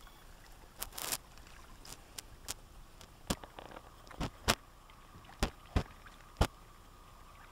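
A string of about ten irregular sharp knocks or taps over a low hiss, the loudest about halfway through. A faint steady high tone comes in near the middle.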